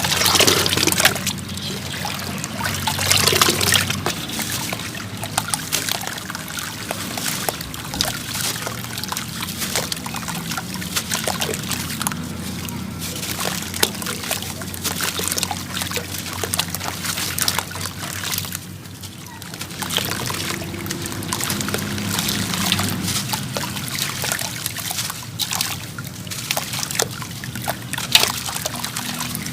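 Wet sand-cement chunks crumbling and breaking apart in water, a dense crackling with sloshing and trickling, in bursts that ease off briefly partway through.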